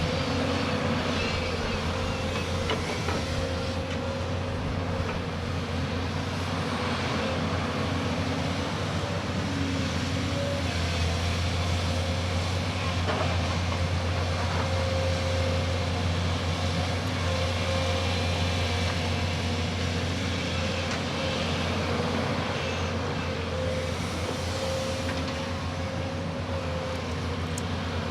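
Excavator's diesel engine running steadily under load, with a steady whine over the low engine hum.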